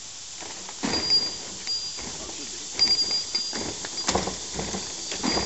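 Clunks and rattles from a PVC-pipe chicken-coop frame and its swing-arm wheel being lifted and worked by hand: several separate knocks, the loudest about four seconds in.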